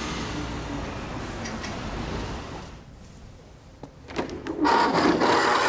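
A steady background hush, then a few clicks and a heavy wooden double door being pushed open, a loud scraping rush of noise lasting about two seconds near the end.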